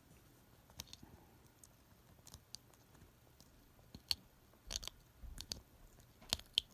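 Scattered small clicks and crackles of cut vinyl decal scraps being picked and peeled off their backing sheet with a thumbtack weeding tool.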